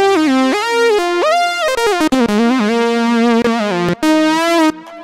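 Omnisphere software synthesizer's 'Classic Moog Lead' patch played as a single-note lead melody, each note gliding smoothly into the next.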